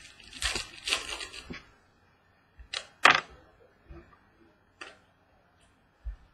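Trading cards being handled and flicked through: a papery rustle for about the first second and a half, then a few sharp clicks of cards, the loudest about three seconds in.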